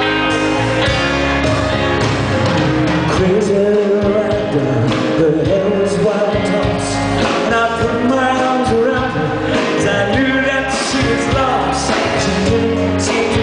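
Live rock band playing, with electric guitars, bass, drums and keyboard under a male lead vocal, heard from among the audience in a large hall.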